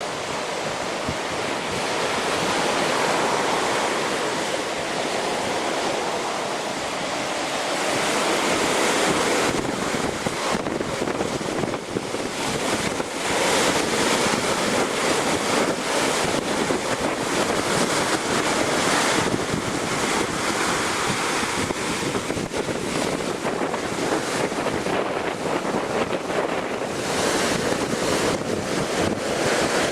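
Storm waves raised by a hurricane offshore surging and breaking against a sea wall at high tide, with strong wind buffeting the microphone in frequent crackling gusts from about ten seconds in.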